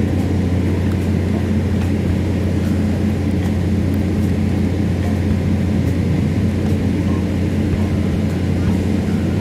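A steady low drone, even in level throughout, with faint scattered knocks over it.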